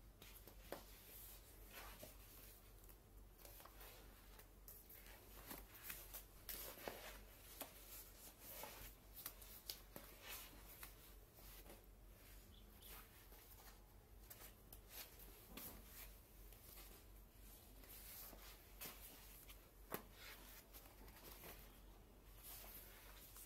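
Faint rustling and crinkling of thick non-woven wallpaper sample pages being handled and turned in a sample book, with scattered small clicks and one sharper snap near the end.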